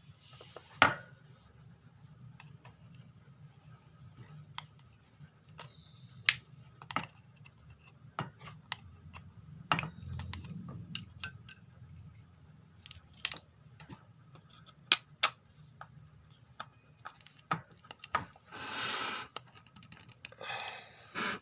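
Plastic shower head being pried open and taken apart by hand: scattered sharp clicks and taps of a tool and parts against hard plastic, with two short scraping noises near the end, each about a second long.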